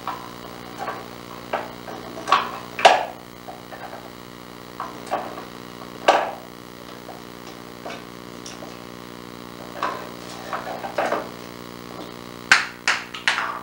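Small wooden drawers knocking and rattling as a rose-ringed parakeet works at them with its beak: irregular sharp wooden clacks, with a quick run of three or four near the end.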